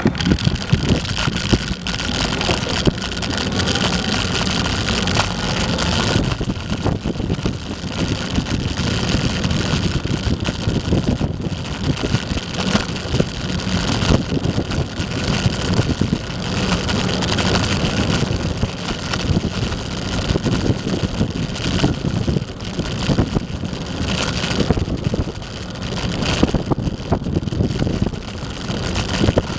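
Eglide electric skateboard rolling over asphalt: a steady rumble of wheels and deck with wind buffeting the microphone. The noise jumps up sharply right at the start as the board gets moving.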